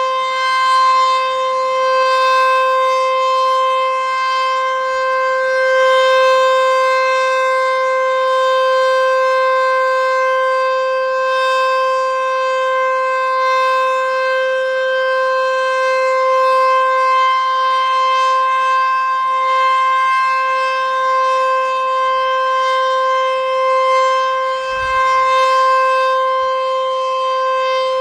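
Sentry 14V-B outdoor warning siren sounding its full-alert signal: one steady, unbroken tone held at a constant pitch, with slight slow swells in loudness.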